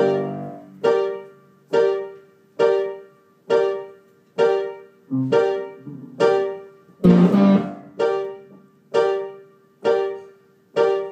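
Piano striking the same chord over and over, about once a second, each one ringing and fading before the next. Lower notes come in around five seconds in, and a heavier low chord lands about seven seconds in.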